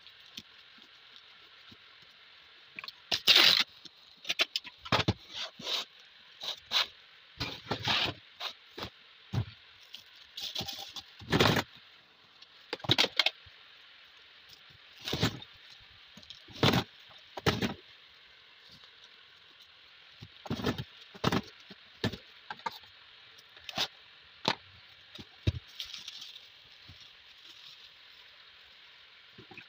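Paper wrapping and clear plastic stretch film rustling and crackling in irregular short bursts as a parcel is wrapped and handled.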